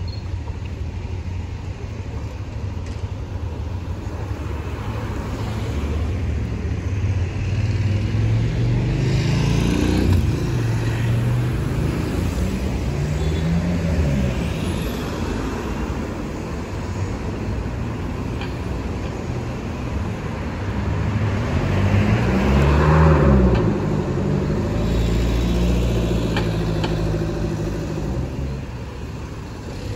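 Road traffic: cars passing close by, their engine notes rising and falling over a steady traffic hum. The two loudest passes come about a third of the way in and again past two-thirds.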